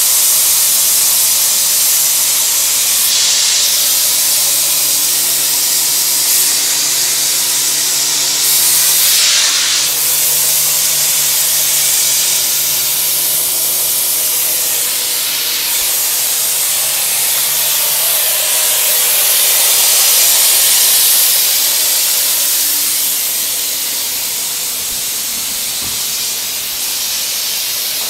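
Steady, loud rushing hiss with a faint low hum underneath.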